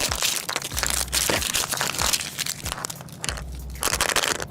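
Crinkly plastic wrapping of a Mini Brands capsule being handled, peeled and torn open: a dense, irregular run of crackling and crunching.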